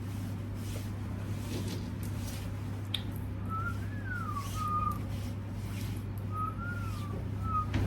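Someone whistling a short three-note phrase, a rise then a fall, twice: once a few seconds in and again near the end. A steady low hum runs underneath.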